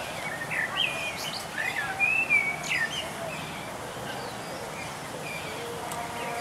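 Birds chirping and whistling in short rising and falling notes, busiest and loudest in the first three seconds and sparser after, over steady outdoor background noise.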